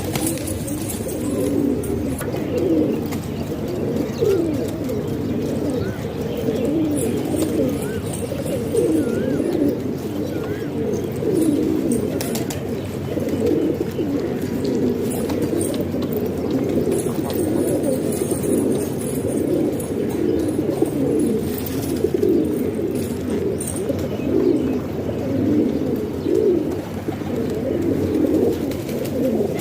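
A flock of domestic pigeons cooing continuously, many low coos overlapping into a steady chorus.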